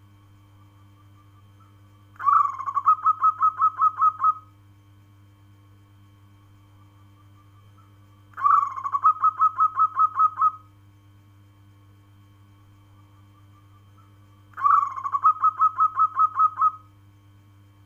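Zebra dove (perkutut) cooing call: an opening note followed by a quick run of about ten short coos, given three times about six seconds apart.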